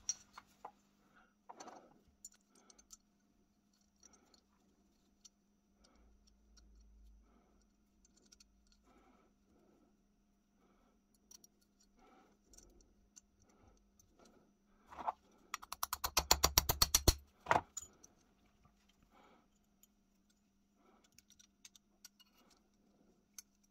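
Small steel parts of an antique percussion pistol clicking and clinking lightly as they are handled and fitted together. About two-thirds of the way in, a quick run of rapid metallic clicks lasting a second or two is the loudest sound.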